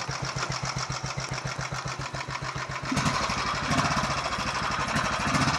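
Royal Enfield 500 Electra X single-cylinder four-stroke engine idling with an even beat. About three seconds in it gets louder as the motorcycle pulls away.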